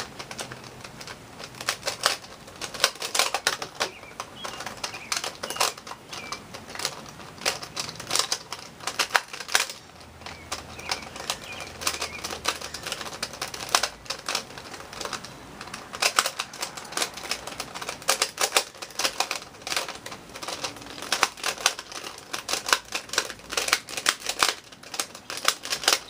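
A stiff plastic 2x2 puzzle cube (an Eastsheen 2x2) being turned fast by hand: a dense, irregular run of plastic clicks and clacks as the layers are forced round. The cube is super stiff and hard to turn.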